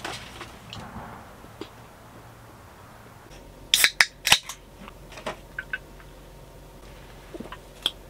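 An aluminium drink can being opened: a quick cluster of sharp cracks from the pull tab about four seconds in, followed by a few lighter clicks of handling.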